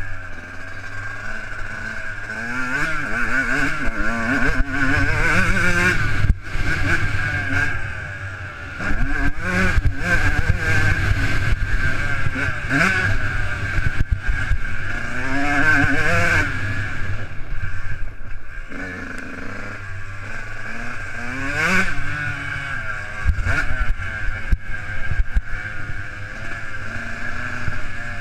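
Motocross bike engine running hard as it is ridden along a dirt track, its pitch rising and falling again and again with the throttle. The level drops briefly about six seconds in and dips for a moment around eight seconds before the engine picks up again.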